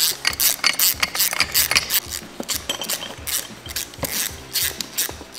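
Hand ratchet clicking in quick, irregular strokes as it tightens the two bolts that clamp the plate onto a Gedore McPherson strut spring-compressor tool.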